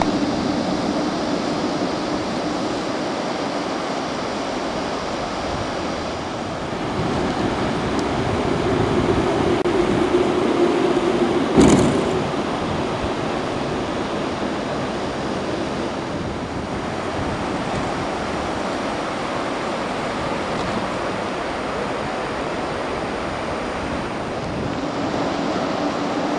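Strong wind rushing over the microphone on an open beach. A low hum builds from about seven seconds in, and a single sharp bump comes near twelve seconds in, the loudest moment.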